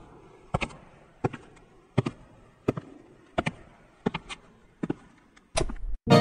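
Sharp clicks or taps repeating at an even pace, about one every 0.7 seconds, several in quick pairs, with a louder burst of low noise shortly before the end.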